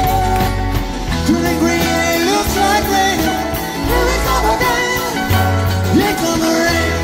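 Live rock band playing: an electric guitar lead with notes that bend upward in pitch, over sustained low bass notes.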